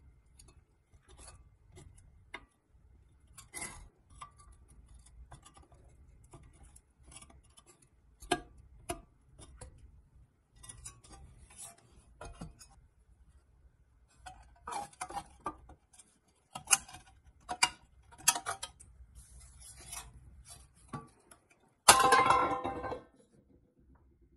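Small metal clicks, scrapes and clinks of a pick tool working the bent tabs on a pressed-steel Tonka toy truck chassis. Near the end comes one loud metallic clang that rings for about a second, as a steel part is set down.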